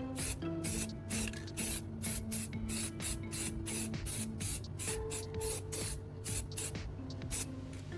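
Aerosol spray paint can hissing in short, repeated bursts, a few a second, as light coats of red paint go on over primer, with background music under it.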